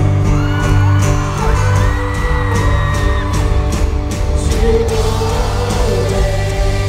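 Live rock band playing in a large arena, with sung vocals over steady bass and cymbals, and whoops and yells from the crowd.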